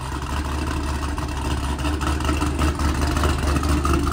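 Truck engine running steadily on a chassis dyno, a deep, even drone that does not rise or fall.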